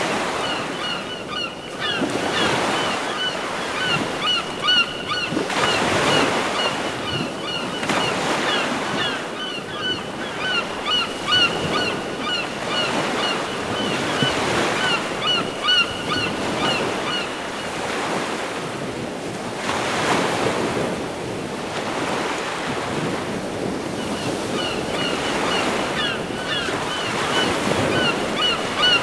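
A Samsung Galaxy Stellar nature-sound ringtone of ocean surf swelling and falling every few seconds. Quick high bird chirps play over it and stop for several seconds after the middle, then return.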